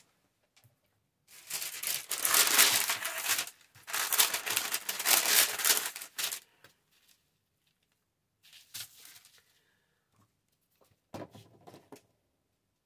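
Craft supplies being rummaged through by hand to find a bottle of glue, with crinkling and rustling. There are two long stretches of loud crinkling in the first half, then a few short, quieter rustles and knocks.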